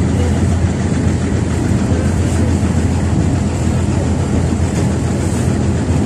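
Excursion boat's engine running steadily under way: a loud, even low hum with a steady rushing hiss over it.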